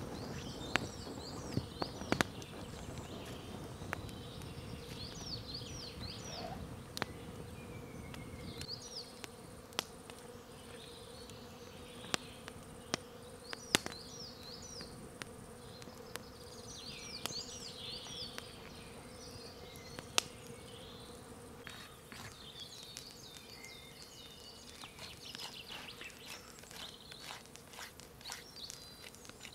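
Wood campfire crackling with scattered sharp pops, while songbirds sing short, repeated warbling phrases and a steady faint hum runs underneath. Near the end the clicks come quicker, as a knife carves into wood.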